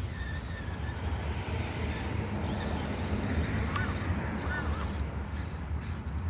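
FMS Smasher V2 RC monster truck driving, its electric motor and drivetrain whining, with two short revs a little before halfway that rise and fall in pitch. A steady low rumble runs underneath.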